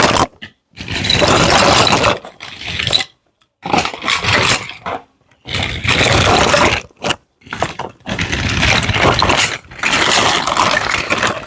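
Repeated bursts of scraping and rustling from handling a toy playset and its packaging during an unboxing. There are about eight bursts, each up to a second and a half long, with short pauses between them.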